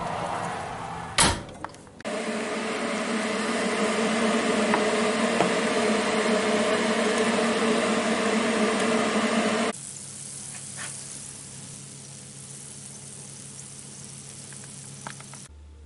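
Kitchen cooking noise from an open fan oven: a steady fan hum and hiss, with hot fat in a roasting tin of potatoes being turned. There is a sharp knock of metal about a second in, and about ten seconds in it drops abruptly to a quieter hum with a few faint clicks.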